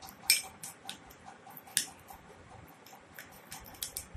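Metal spoon stirring a thick paste in a ribbed glass bowl, clicking and scraping against the glass in irregular ticks, with a few louder clinks.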